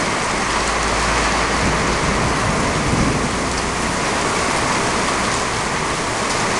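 Heavy wind-driven rain of a severe thunderstorm pouring down, a loud steady hiss, with a low rumble underneath for the first four seconds.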